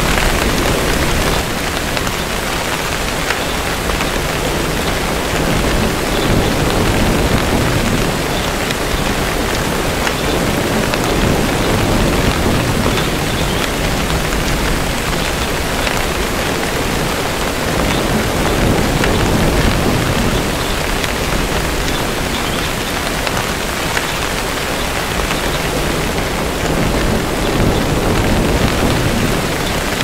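Steady heavy rain with low rumbles of distant thunder swelling and fading underneath.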